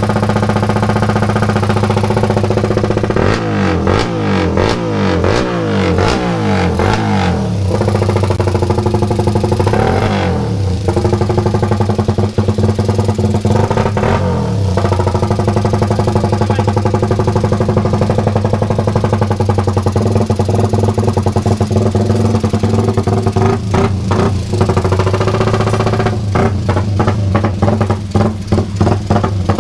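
Freshly refreshed drag-racing motorcycle engine running at a steady idle, its throttle blipped in quick bursts of revs a few seconds in, twice midway, and repeatedly near the end.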